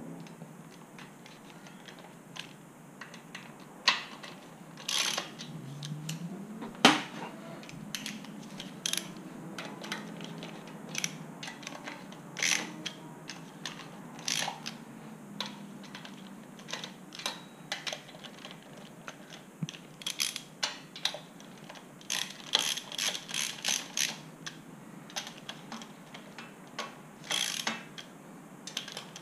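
Socket ratchet clicking in irregular runs, with metal clinks of the socket, as the nuts holding a Porsche 911 camshaft tower to the cylinder head are spun down by hand to take up the slack. There is a quick run of clicks a little over two-thirds of the way through.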